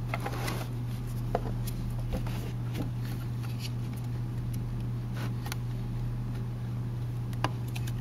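Faint, irregular clicks and taps of fingers handling an SSD as it is pushed down and seated in a 2011 Mac Mini's drive bay, over a steady low hum.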